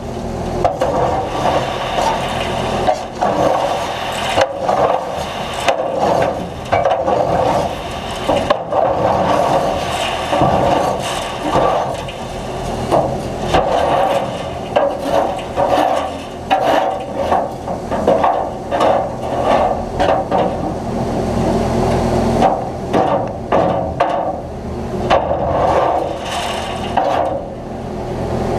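John Deere 9500 combine harvesting corn: a steady engine hum under constant irregular rattling, knocking and cracking as stalks and ears feed through the machine.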